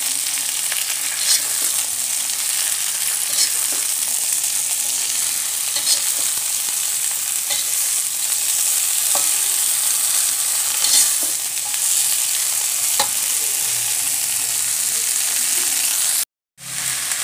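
Boiled chaya (Japanese papaya) leaves sizzling in hot oil in an aluminium pan, stirred with a metal spatula that scrapes and clicks against the pan every couple of seconds. The sound drops out for a moment near the end.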